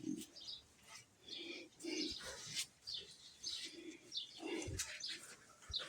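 Soft, low bird calls, short coos or clucks repeating about every half second to a second, with faint chirps.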